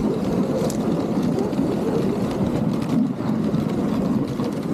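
A wooden dog sled's runners gliding over a packed snow trail behind a husky team, a steady scraping noise with a couple of small knocks.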